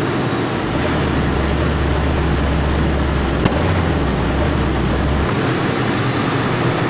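1993 Lincoln Town Car's 4.6-litre V8 is run at wide-open throttle. A deep drone sits from about a second in until about five seconds, and there is one sharp pop about three and a half seconds in. The pop is a backfire out of the intake, the top half of the engine, not the tailpipe, which the technician takes as a sign that the right bank is running rich.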